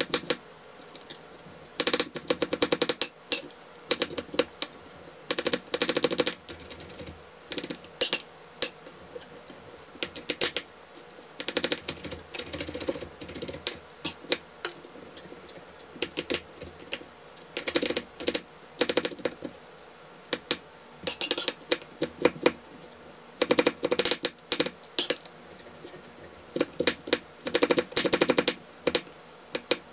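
Chef's knife rapidly chopping and mincing garlic cloves on a cutting board: bursts of quick taps, a second or few at a time, with short pauses between.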